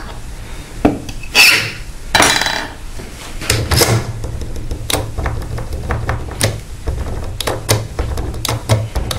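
Two strokes of a file on a key blank, then from about three and a half seconds in the blank, held in a handle, is rattled and twisted in an ASEC euro-profile cylinder lock: many small metallic clicks over a low rumble as the pins bear on the blank to leave impression marks.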